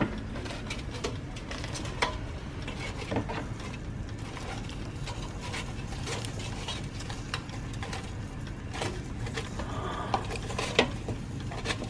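Tongs turning crisp breaded chicken pieces in an air fryer's metal basket: scattered crackles and clicks of the crisp crust and the tongs against the basket, over a steady low hum.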